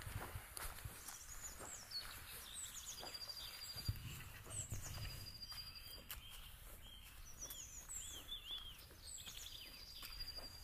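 Songbirds singing and chirping, with short falling and arched whistles and a high dry trill repeated several times. Soft footsteps on a hiking trail underneath.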